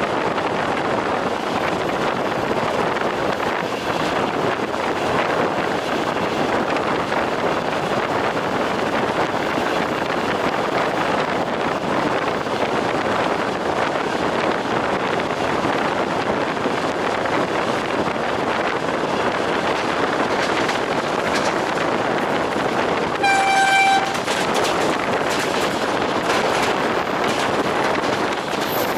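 Moving train running steadily, its wheels clattering over the rails. Near the end a train horn gives one short, high toot lasting under a second.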